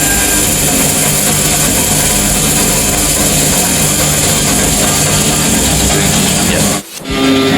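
Popcorn vending machine running its cooking cycle: a steady, loud rush of the machine's hot-air blower with music playing over it, cutting out briefly about seven seconds in.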